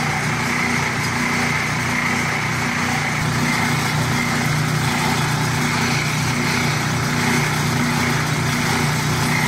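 Machinery of a core-filled cereal production line running steadily, a continuous low motor hum with a high whine over it.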